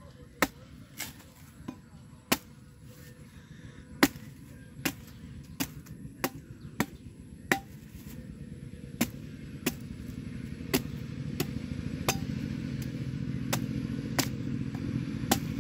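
Machete chopping the husk off a green coconut: sharp thwacks at an irregular pace, roughly one or two a second. A low hum builds underneath in the second half.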